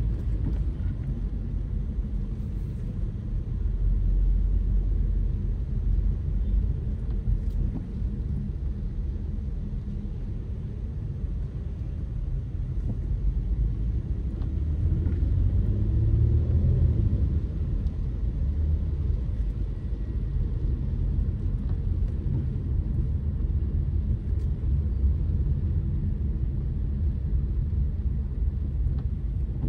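Steady low rumble of a car driving, its engine and tyres heard together, swelling for a few seconds past the middle.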